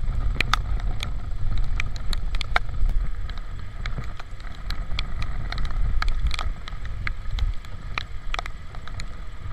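Riding a motorcycle in the rain: steady low wind rumble on the camera's microphone, with scattered sharp ticks of raindrops striking the camera.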